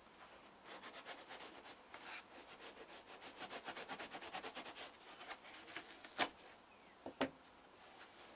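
Knife sawing through a block of soft foam in quick rasping strokes for about four seconds, followed by two sharp clicks about a second apart.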